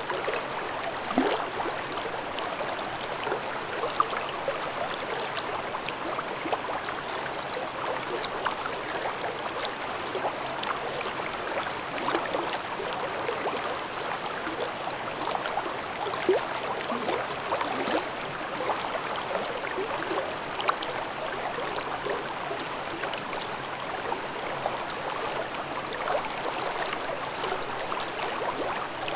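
Mountain stream babbling over rocks: a steady rush of water with many small irregular splashes and gurgles.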